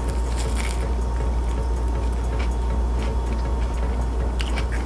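Close-up chewing of a veggie sub on ciabatta bread, with scattered small crunchy clicks from the bread and raw vegetables, over a steady low hum.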